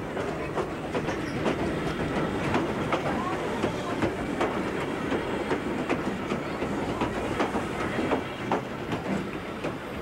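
Railway coach wheels clattering over rail joints with a steady rumbling run, heard through an open coach window while another train slides past close by on the next track. Sharp clicks come irregularly over the rumble.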